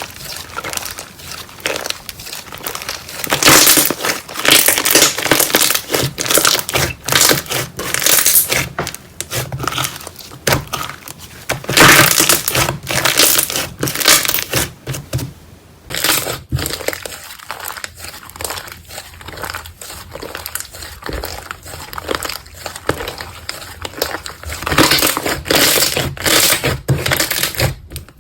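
Slime being squeezed and worked by hand, giving dense crinkling, crackling sounds, with a short lull a little past halfway before the crackling resumes.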